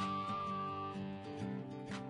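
Background music: acoustic guitar strumming chords, with a high whistled note held through the first second.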